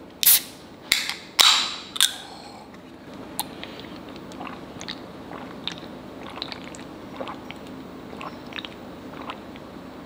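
A plastic drink bottle's screw cap is twisted open: four sharp crackling snaps over the first two seconds. Faint small clicks and mouth sounds follow.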